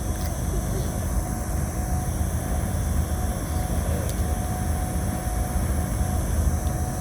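Low, steady rumble of a large ship's engines passing close by, with a faint steady hum over it.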